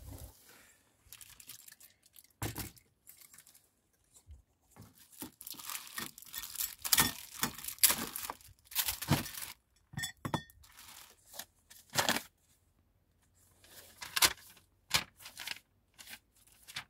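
Plastic packaging crinkling and tearing in irregular bursts as wire-mesh parts are unwrapped, with a few sharp light clicks in between and a paper sheet rustling near the end.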